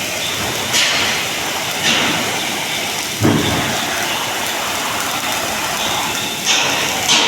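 Electric arc welding: a continuous crackling hiss, with several sudden louder flare-ups about one, two, three and six and a half seconds in.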